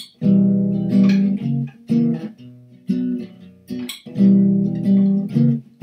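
Nylon-string classical guitar playing the introduction to a song, with fingerpicked chords struck about once a second, each ringing and fading before the next.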